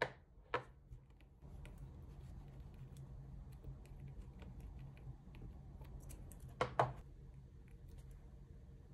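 Metal nail-gel spatula and small nail tools clicking and tapping against a gel jar and a palette card: a sharp tap right at the start, another about half a second later, and a close double tap about two-thirds through, with faint light ticks and scrapes between, over a faint low hum.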